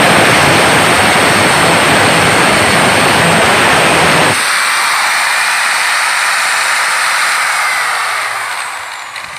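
Electric angle grinder's cut-off disc cutting through a square steel tube, a loud grinding rush, until about four seconds in, when the disc comes free of the metal. The grinder then runs on with a high whine, and near the end it winds down, its pitch falling.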